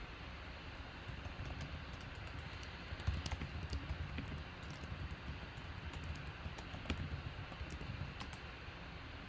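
Typing on a computer keyboard: scattered, irregular key clicks, busier from about three seconds in, over steady background noise.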